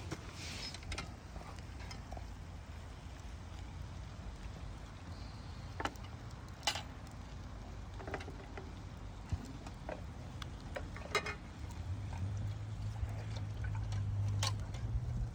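Wood fire in a small fire pit with a foil packet cooking on it: scattered pops and crackles over a low steady rumble that grows louder near the end.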